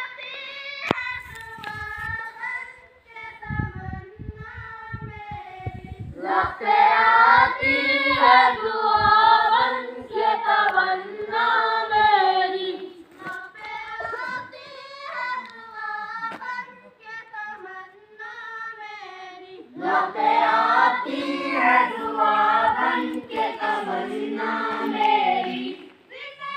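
Schoolchildren singing a school assembly song together in unison. Quieter passages alternate with louder ones where the full group sings, swelling about six seconds in and again about twenty seconds in.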